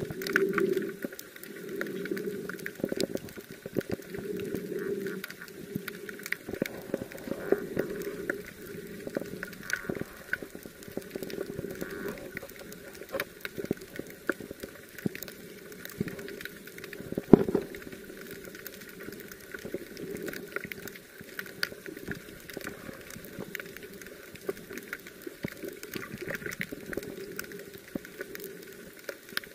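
Underwater sound on a camera recording: a muffled low noise that swells and fades every second or two, dotted with many small clicks and crackles, and one sharper knock about seventeen seconds in.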